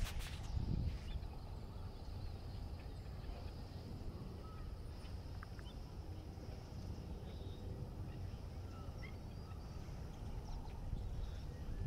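Pond ambience: a low steady rumble with scattered faint, short calls of waterbirds on the water.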